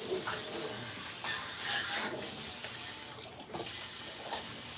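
Kitchen tap running into a sink in a steady hiss, with a few light clatters of kitchenware.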